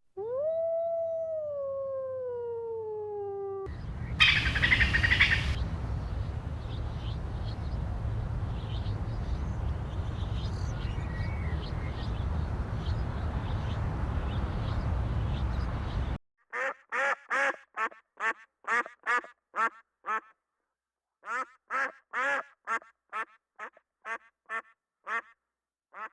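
Duck quacking in quick runs of short quacks, about two to three a second, with a brief pause between runs in the last third. Before that comes a long stretch of steady rumbling outdoor noise with faint calls in it, and at the very start a single long call falling in pitch.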